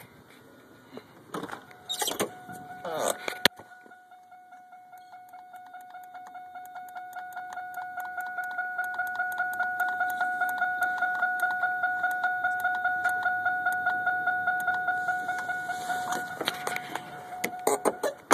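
An electronic beeper sounding one steady tone that pulses about four to five times a second, growing louder over its first several seconds, and stopping near the end. Clicks and rattles come just before it starts and again as it stops.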